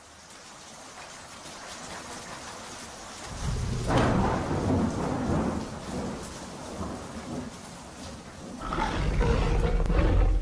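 Thunderstorm: a hiss of rain builds, a thunderclap cracks about four seconds in and rolls on as a low rumble, and a second heavy rumble of thunder swells near the end.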